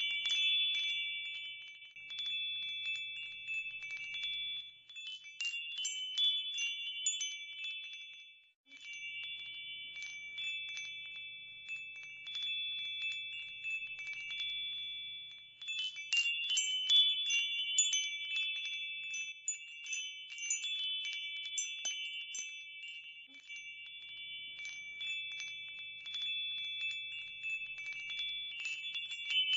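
Tinkling metal chimes, struck in irregular clusters, with a few high tones ringing on between the strikes. The chimes stop briefly about eight and a half seconds in.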